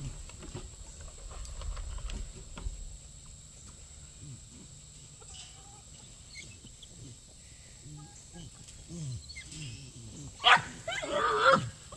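A dog barks near the end: one sharp, loud bark, then a longer bark that drops in pitch. Farm poultry call faintly before it.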